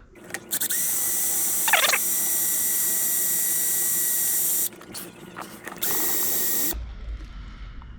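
Power drill running with its bit against a pop rivet in two goes: a steady run of about four seconds, then a shorter burst of under a second. The bit is not cutting through the rivet.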